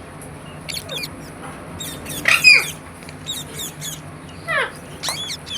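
Rose-ringed (Indian ringneck) parakeet giving short chirps and squawks, the loudest about two seconds in, followed later by a quick falling call.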